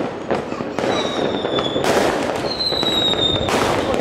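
A fireworks display with many shells going off at once: a continuous crackle, several sharp bangs about a second apart, and thin whistles from shells in flight.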